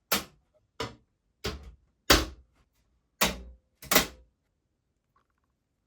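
Six sharp knocks or thuds at uneven spacing over about four seconds, each dying away quickly, then silence.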